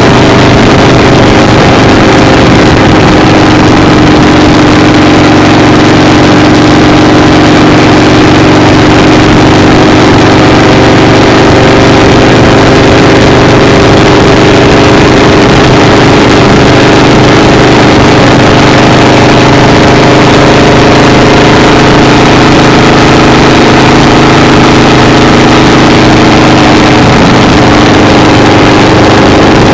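An engine running steadily and loudly: a constant drone of several held tones over a rushing noise, with no change in speed.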